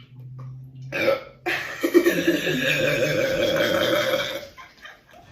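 A person's long burp, brought up by gulping down a bottle of Sprite. It starts with a short burst about a second in and then runs on loud and rough for about three seconds.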